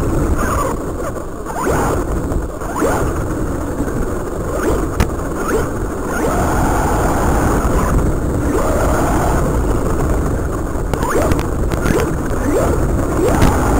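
Feiyue Eagle RC car's electric motor and drivetrain whining in short bursts that rise in pitch with the throttle, over a steady rough rush from the tyres on the ground.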